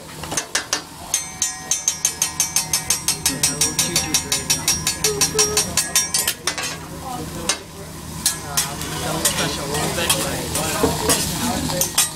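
Metal spatulas clacking rapidly and evenly against a steel hibachi griddle, about five strikes a second, over food sizzling on the hot plate. The clacking stops about halfway through, giving way to slower scraping and scattered clinks as the food keeps sizzling.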